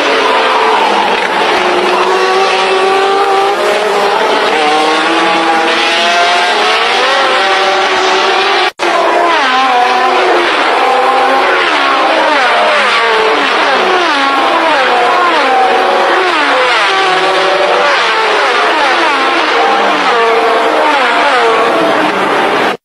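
1970s Formula One cars racing past, several engines revving hard and overlapping, each climbing in pitch and dropping back at the gear changes. The sound cuts out for a moment about nine seconds in.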